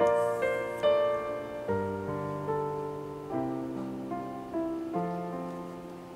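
Background music: a slow, gentle piano tune, single notes and chords struck one after another over low bass notes, each one fading before the next.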